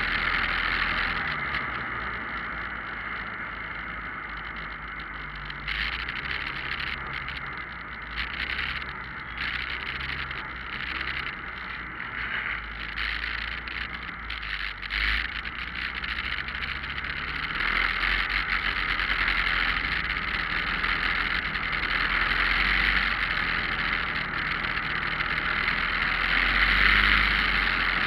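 Motorcycle riding in traffic, its engine running under steady wind noise on the mounted camera's microphone. The engine pitch rises and falls with the riding; the sound eases off through the middle as the bike slows, then grows louder again from a bit past halfway as it speeds up.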